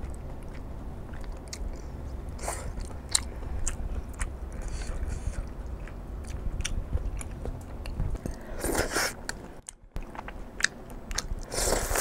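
Close-miked eating of glass noodles in a thick spicy sauce: several wet slurps, the loudest about nine seconds in and at the end, with chewing and light clicks of chopsticks on a bowl. A steady low air-conditioner hum runs underneath.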